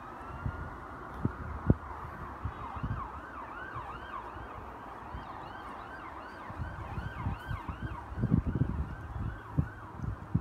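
A distant siren sounding in a fast rising-and-falling pattern, about two to three cycles a second, over irregular low thumps and rumble that are loudest about a second and a half in and again around eight seconds.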